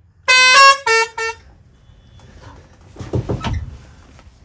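Truck's musical pressure horn playing a short tune of three notes, the first held longest, in the first second and a half, worked from a cab switch panel that selects its different tunes. A softer rumbling bump follows near the end.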